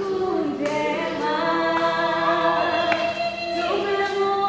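A choir singing slow, long-held notes.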